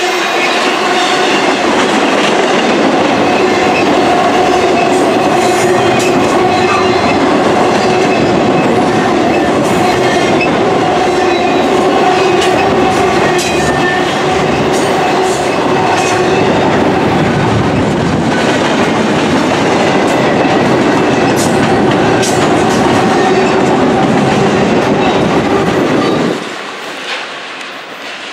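Norfolk Southern intermodal freight train's well cars rolling past: a steady, loud rumble of wheels on rail with scattered clicks and a steady hum running through it. The noise drops off suddenly about 26 seconds in as the last car goes by.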